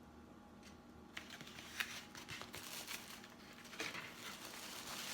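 Chinese takeout packaging being handled: rustling and crinkling with small clicks and knocks, starting about a second in and growing louder.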